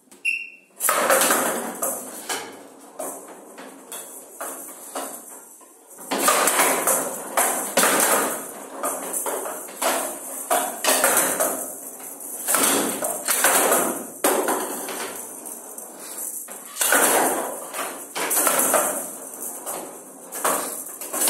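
Showdown rally: the rattle ball, with metal beads inside, jingles as it rolls and is batted back and forth along the wooden showdown table. It gives sharp knocks each time it strikes the bats and the side rails.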